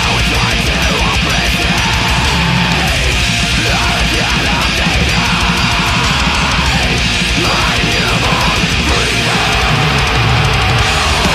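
Loud, steady heavy metal music with distorted electric guitars.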